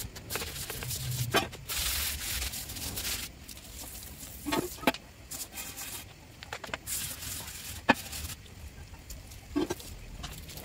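A stiff hand brush scrubbing in strokes over a wet, soapy steel skid plate, with a garden hose running water over the tiles. A few short sharp knocks and scrapes fall between the scrubbing strokes.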